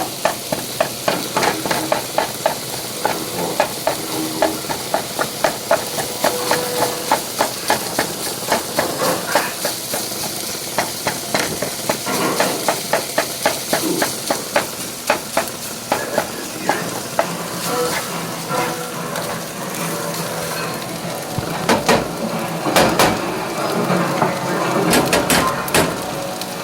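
Food sizzling in a pan, stirred with a utensil that knocks against it about twice a second, with louder clattering of cookware near the end.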